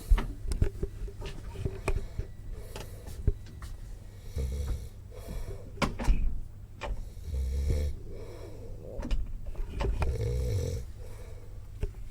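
A sleeping passenger snoring, three long snores about one every two and a half to three seconds, with short sharp knocks between them.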